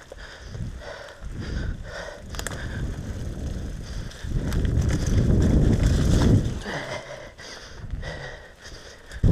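Downhill mountain bike rolling fast over a rough, leaf-covered dirt trail: tyre and ground rumble with rattling clicks from the bike over bumps. It gets louder and rougher about four seconds in for around two seconds.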